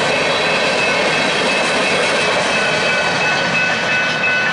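Freight train's covered hopper cars rolling past at a grade crossing, with steady wheel-on-rail rolling noise that eases near the end as the last car clears. Grade-crossing warning bells ring through it and stand out more plainly once the train has gone by.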